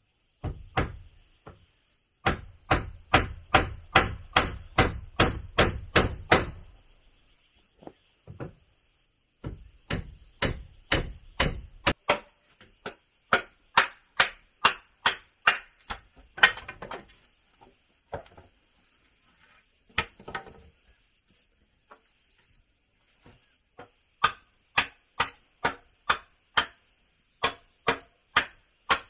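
Repeated blows of a tool on wood, about two to three strikes a second, in runs broken by short pauses; the heaviest run comes in the first few seconds. A faint steady high-pitched hum sits underneath.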